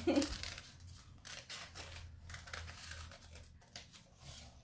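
Scissors cutting out motifs from a plastic-film décor transfer sheet on a wax paper backing: a run of quiet, irregular snips.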